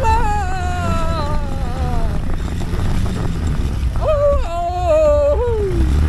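Motorcycle engine running with a steady low rumble and wind on the microphone as the bike rides up a dirt track. Over it come two long, wavering high cries, the second sliding down in pitch near the end.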